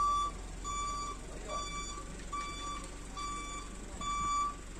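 Electronic beeper sounding about six short beeps, a bit more than one a second, all on the same pitch.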